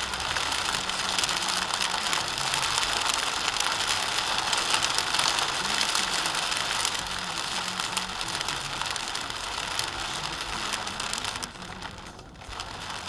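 Dense crackling hiss of rain and tyres on a wet road, heard from inside a moving car through a dashcam's microphone. It dips briefly near the end.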